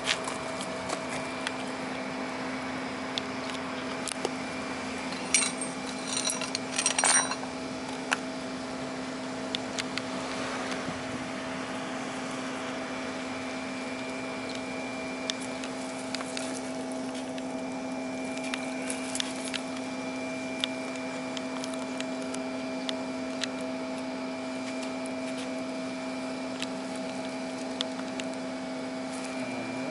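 Steady machinery hum with a constant low drone and a second higher tone, over which come a few light clicks and a brief crinkly rustle of handling about five to seven seconds in.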